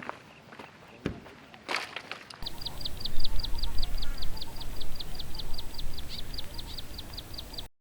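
A rapid, evenly repeated high chirping call, about six short notes a second, from a small animal, likely a bird, over a low rumble. It starts about two seconds in, after a few soft clicks, and stops abruptly near the end.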